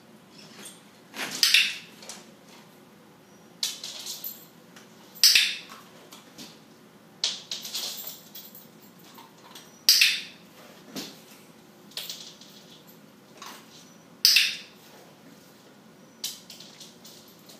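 An irregular series of short, sharp metallic clicks and clinks, a second or two apart, about a dozen in all.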